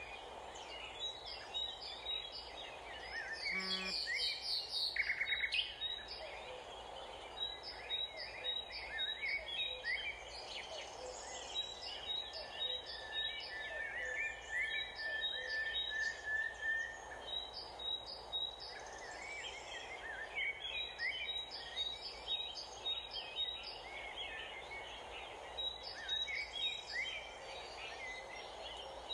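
Outdoor ambience of several birds chirping, with a short high note repeated in quick groups every couple of seconds, over steady background noise.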